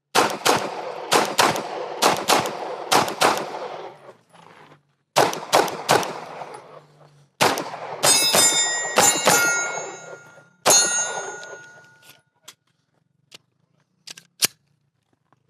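Pistol shots fired mostly in quick pairs, then after about eight seconds several hits on steel targets that ring on after each shot. A few faint clicks follow near the end. It is one shooter's timed run through a practical shooting stage.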